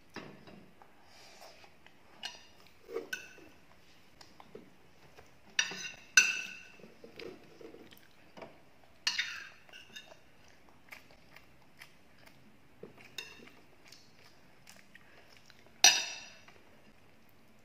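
Metal spoons clinking against ceramic plates and serving dishes: several sharp clinks that ring briefly, the loudest about six seconds in and near the end, with soft chewing sounds of eating in between.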